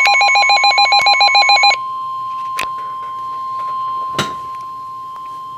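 NOAA weather radio alert: a fast pulsing electronic alarm, about eight beeps a second, sounds over a steady 1050 Hz warning tone and cuts off suddenly a little under two seconds in. The steady tone carries on alone, with a couple of faint clicks. The tone is the signal for a severe thunderstorm warning.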